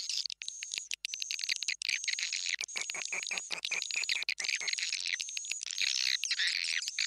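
Swiftlet lure call played back: fast, dense chattering and clicking twitters of swiftlets, with short high whistled notes repeating every half second or so. It is the kind of call track played in swiftlet houses to draw the birds in to nest.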